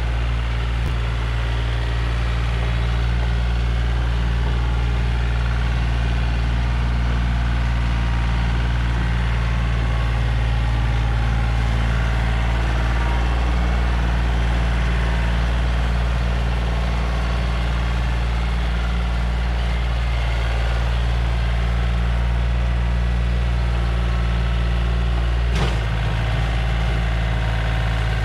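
Yanmar compact diesel tractor with a rear PTO rototiller, its engine running steadily. Near the end there is a brief sharp knock, and the engine note shifts slightly after it.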